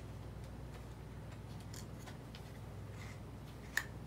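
Faint clicks of hands handling a Canon PowerShot SX70 camera body, with one sharper click a little before the end, over a low steady hum.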